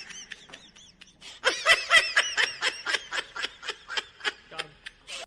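A person giggling: a rapid string of short, high-pitched laughs, about six or seven a second, growing fainter toward the end.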